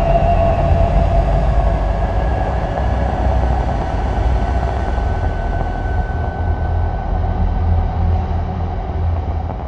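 Dark ambient drone: a steady, heavy low rumble with faint held tones above it, much like a train rolling past. It thins out slightly near the end.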